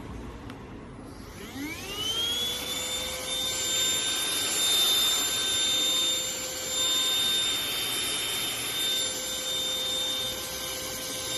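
Baseus A1 cordless handheld vacuum cleaner switched on: its motor spins up with a rising whine about a second and a half in, then runs at a steady high-pitched whine over a strong rush of air.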